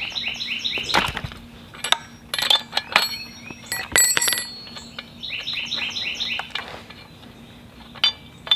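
Metal clinks and taps of a spark plug wrench on a Husqvarna chainsaw's spark plug and engine cover as the plug is loosened and the wrench is set down. A songbird sings two runs of quick repeated chirps, one at the start and one about five seconds in.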